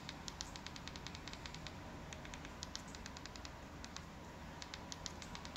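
Faint, irregular clicking, several clicks a second in quick runs with short pauses, as the buttons of an Amazon Fire TV remote are pressed to step across the on-screen keyboard.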